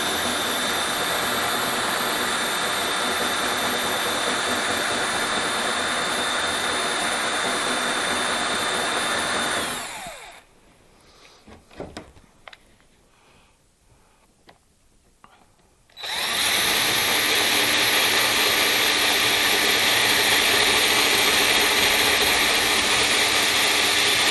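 Electric drill running steadily, boring a three-quarter-inch hole through the cabinet door from the inside. It stops about ten seconds in, a few faint clicks follow in a pause of about six seconds, then the drill starts again and runs on steadily, a little louder.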